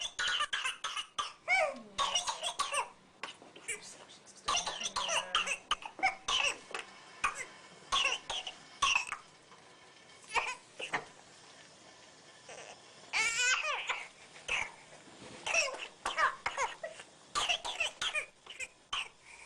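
Baby with whooping cough (pertussis) coughing in fits of short, rapid coughs, with brief pauses between the runs. About thirteen seconds in, a high, rising, drawn-in sound: the whoop of the baby gasping for breath after a coughing fit.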